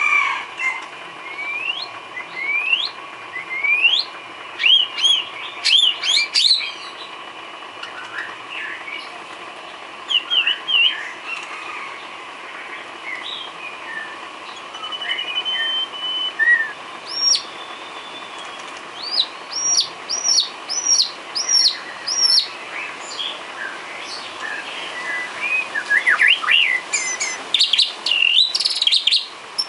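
White-rumped shama (murai batu) singing a varied song of whistles, rising sweeps and chirps, with a quick run of about seven repeated high notes about two-thirds of the way through. Faint steady tones hum underneath.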